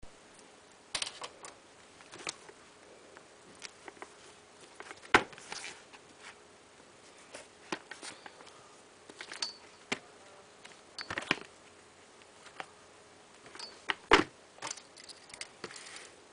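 Packaging being handled and opened: irregular clicks, taps and short rustles, with louder knocks about five and fourteen seconds in.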